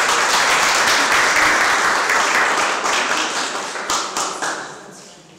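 Audience applauding: many people clapping together, loud at first and fading out over the last couple of seconds.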